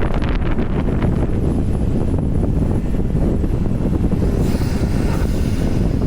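Porsche 991 Turbo's twin-turbo flat-six and tyres droning steadily at speed, a low rumble mixed with wind buffeting the microphone. A brief high hiss rises over it about four and a half seconds in and fades within about a second and a half.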